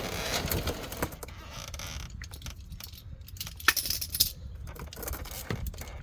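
Scraping for about two seconds, then a series of sharp metallic clinks and knocks as tools and parts are handled and pulled out from under the car during an oil change. The loudest clink comes a little before four seconds in.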